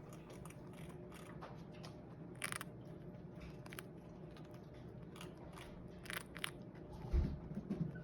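Chinchillas biting and crunching hardened timothy hay cookies: faint, scattered sharp crunches a second or more apart, coming more often near the end.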